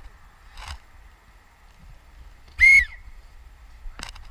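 Referee's whistle, one short, loud blast.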